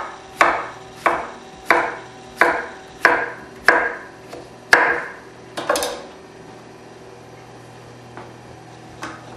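Chef's knife chopping zucchini into bite-sized pieces on a wooden cutting board: a steady series of sharp knocks, about one every two-thirds of a second, stopping about six seconds in. One faint knock near the end.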